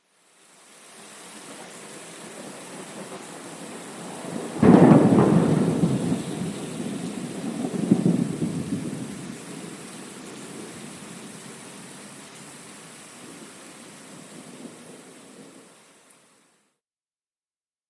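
Thunderstorm: steady rain with a sudden thunder crash about five seconds in, rumbling on with a second swell a few seconds later and slowly dying away. The rain fades in at the start and fades out near the end, leaving silence.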